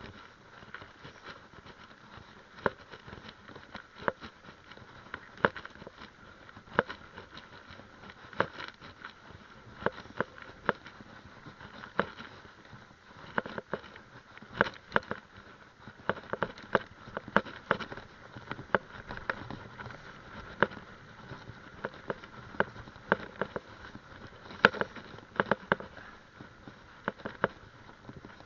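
Mountain bike rolling along a dirt trail, with sharp clicks and rattles from the bike over the ground, about one every second and a half at first and coming faster from about halfway.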